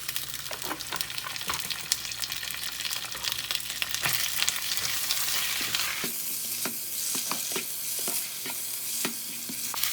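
Leftover cooked rice with scrambled egg and onion frying in oil, sizzling steadily while being stirred, with irregular scrapes and knocks against the pan.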